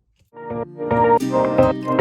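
Background music starts about a third of a second in, with held chords that change every half second or so.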